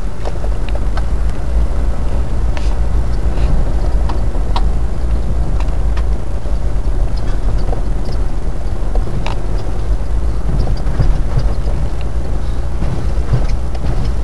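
Inside a vehicle driving slowly along a rough unsurfaced lane: steady low rumble of engine and tyres, with frequent short knocks and rattles as it jolts over the track.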